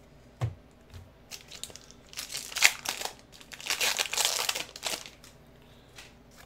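A light knock, then the foil wrapper of a Pokémon booster pack crinkling and tearing as it is opened, in two stretches of about a second each.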